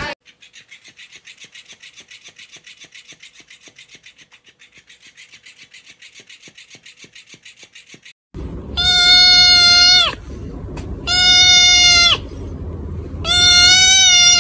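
A kitten meowing loudly three times. Each call is long and held at a steady pitch, and the calls come about two seconds apart. Before them comes a faint rapid ticking.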